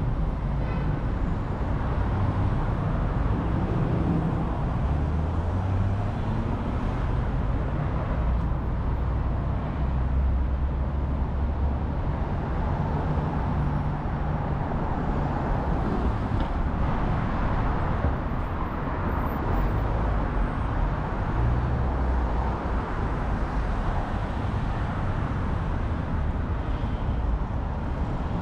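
Steady city street traffic: passing motor vehicles with a low engine rumble that swells and fades as they go by, over a continuous wash of road noise.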